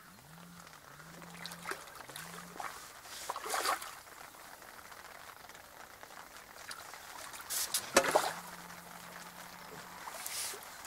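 A hooked common carp splashing at the surface as it is played in on a pole: a burst of splashing about three and a half seconds in, the loudest splash about eight seconds in, and another near the end. A low hum rises and holds three times at the start and once more after the big splash.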